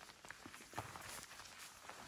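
Faint footsteps of a hiker walking on a stony trail: irregular light scuffs and crunches of boots on rock and gravel.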